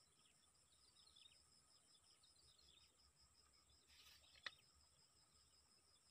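Faint outdoor ambience of insects chirring, a fast pulsing high trill over a steady very high whine, with small birds giving short falling chirps in the first few seconds. A single sharp click about four and a half seconds in.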